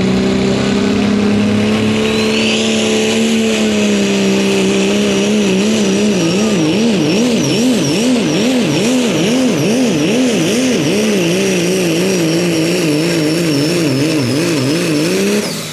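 A Limited Pro class turbo-diesel pickup engine runs flat out, hauling a pulling sled, with a high turbo whistle that climbs about two seconds in and then holds. Partway through, the engine pitch starts rising and falling over and over, more than once a second, and the engine drops off just before the end.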